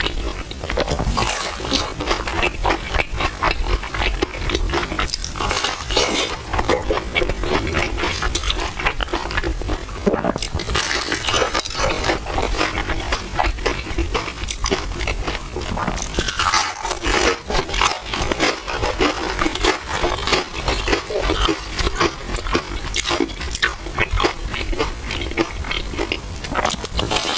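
Close-miked eating of milk tea with soft, chewy purple rice: a steady run of wet chewing, slurping and mouth smacks.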